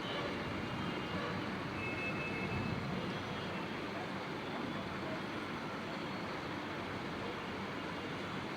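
Steady hum of distant city traffic, with no thunderclap to be heard.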